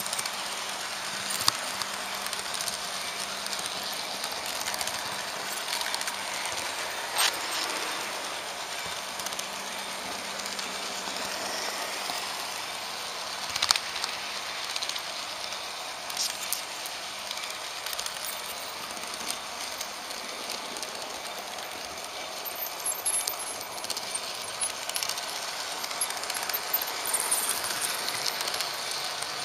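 HO-scale Märklin model train rolling along the track, heard from the camera car riding on it: a steady rattle of wheels on rails, with sharp clicks every few seconds as it passes over rail joints and points. A low steady hum fades out about two-thirds of the way through.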